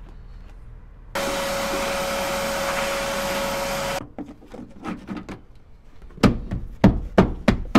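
A loud, steady rushing noise with a steady hum starts suddenly about a second in and cuts off about three seconds later. From about six seconds in comes a quick run of loud knocks, about four a second, as a fist pounds the plastic rear door sill trim plate of a Chevy Suburban down to snap its clips into place.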